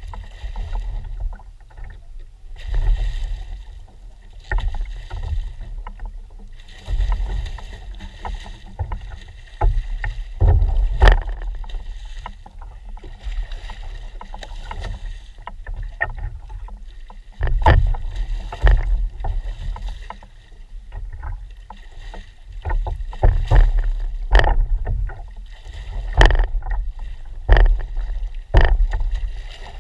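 A hooked halibut thrashing and splashing at the surface beside a plastic kayak, with water slapping against the hull. Irregular sharp knocks and splashy surges sound over a low rumble.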